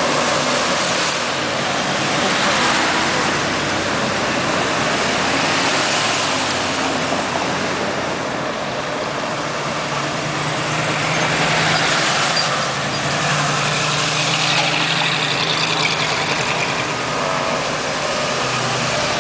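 Cars driving slowly past, including classic woodie station wagons, with engines running and tyre noise. A low engine drone grows stronger about ten seconds in, as a red woodie goes by.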